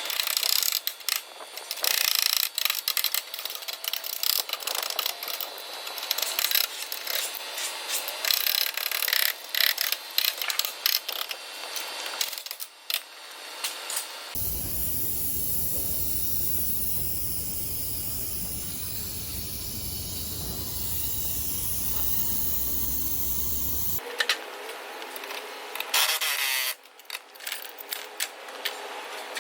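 Irregular abrasive scraping and rubbing on a car body panel during collision bodywork, with scattered small clicks and knocks. About halfway through it gives way abruptly to a steady machine sound that runs for about ten seconds and cuts off sharply, after which the scraping resumes.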